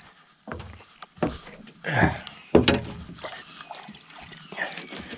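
Water splashing beside a small fishing boat, mixed with several sharp knocks on the boat. The loudest knock comes about two and a half seconds in.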